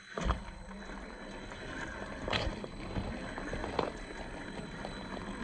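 Traxxas TRX4 RC crawler driving on a trail: its small electric motor and drivetrain running, with a few sharp knocks of tyres and chassis on rocks.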